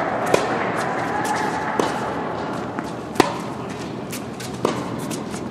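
Tennis rally: a ball struck back and forth by rackets, four sharp hits about a second and a half apart with fainter ticks in between.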